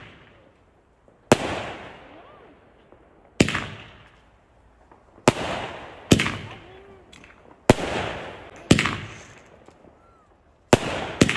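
Fireworks going off: about eight sharp bangs at irregular intervals, each trailing off over a second or so.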